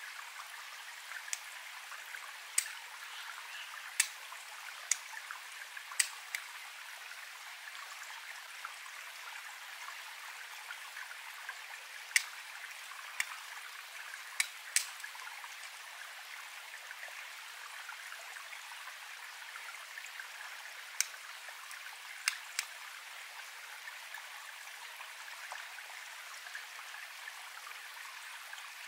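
A flint flake struck against a traditional steel fire striker: about a dozen sharp clicks at irregular intervals, in three spells, each strike throwing sparks onto char cloth to catch an ember. A small stream trickles steadily underneath.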